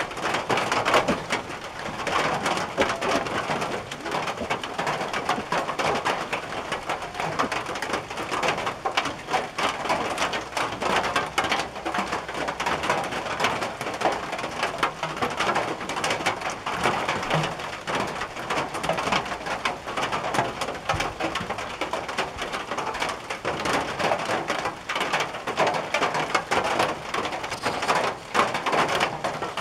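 Rain falling on a tin roof: a dense, even patter of many drop hits.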